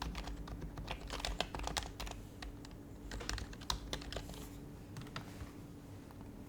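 Typing on an HHKB Professional HYBRID Type-S keyboard, its silenced Topre keys struck in quick runs for about four seconds, then thinning to a few scattered keystrokes. A faint steady hum lies underneath.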